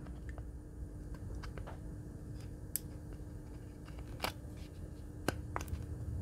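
Scattered light clicks and ticks of needle-nose pliers and a solid-core jumper wire being pressed flush into a plastic breadboard, the sharpest a little after four and five seconds in, over a faint steady hum.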